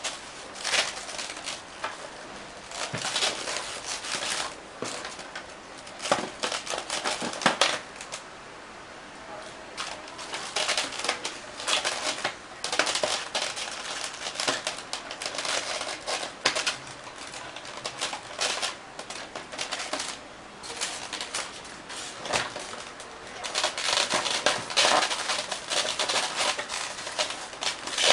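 Styrofoam packing tray squeaking and creaking, with irregular plastic clicks and rustling, as a toy RC helicopter is worked loose from it by hand. The handling comes in uneven bursts, with a quieter pause partway through.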